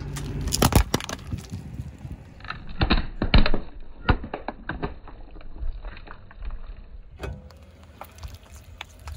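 Hollow plastic toy balls cracking and snapping under a slowly rolling car tyre. There are several sharp cracks, the loudest about three and a half seconds in.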